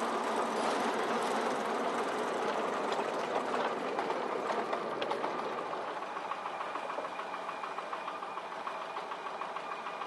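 Small narrow-gauge diesel locomotive running as it hauls a train of mine tubs, with its engine beat and the rattle of the tubs on the track. A regular knocking beat comes through in the second half, and the sound fades a little near the end.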